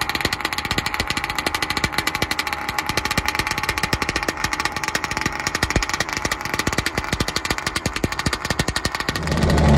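Small two-stroke Zenoah gas engine of an RC speedboat running at idle in rapid, even firing pulses. Near the end it gets louder and deeper as the boat pulls away.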